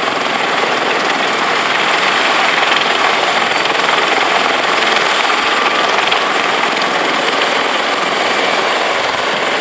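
Airbus A320's jet engines running on final approach, a steady, even rushing noise that holds without change.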